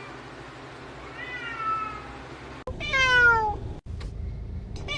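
Domestic cat meowing: a faint meow about a second in, then a louder meow falling in pitch near three seconds, and another starting near the end.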